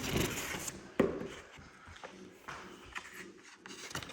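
Handling noise from unpacking plastic vacuum accessories and their packaging: rustling and light taps, with one sharp knock about a second in.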